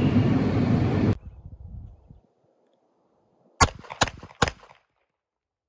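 Steady fan noise of a commercial kitchen's ventilation, cut off about a second in. After a pause, a handgun is fired three times in quick succession, the shots under half a second apart.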